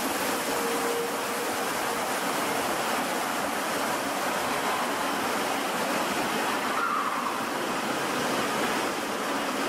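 Osaka Metro Midosuji Line subway train pulling into an underground platform: a steady rumble and rush of wheels and running gear, with faint brief whines near the start and about seven seconds in.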